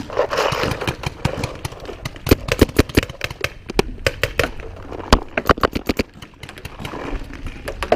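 Paintball markers firing: many sharp pops in quick, irregular volleys.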